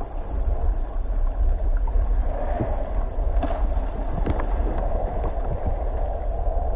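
Water sloshing and splashing against a kayak's hull as a large white sturgeon thrashes at the surface alongside, under a steady low wind rumble on the microphone. A couple of faint sharp clicks come a little past the middle.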